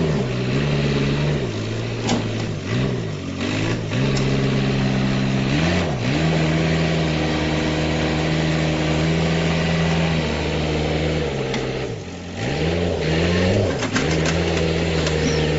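Heavy vehicle engine running, its pitch dipping briefly and coming back up several times as the throttle or load changes, with a few sharp knocks over it.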